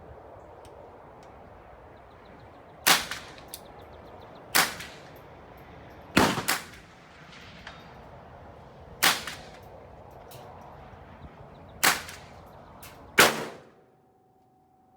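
A 10.5-inch .223 Wylde AR-15 fired in slow semi-automatic shots, about seven in all, spaced one to three seconds apart, two of them in quick succession about six seconds in. Each shot is a sharp crack with a short echoing tail.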